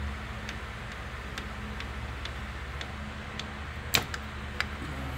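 Ratchet wrench clicking in short, uneven runs as a bolt at the AC compressor line fitting is worked loose, with one sharper metal click about four seconds in. A steady low hum runs underneath.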